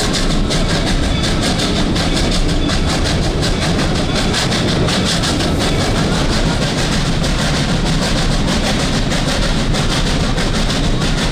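Steam-hauled passenger train running along the track, heard from a car just behind the locomotive: a steady loud rumble and rattle of the coaches on the rails.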